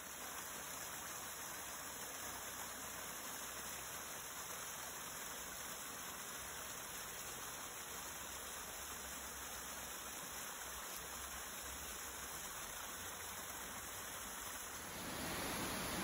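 Water rushing down a small rocky woodland cascade, a steady even rush. About fifteen seconds in it turns louder, as a larger waterfall's rush takes over.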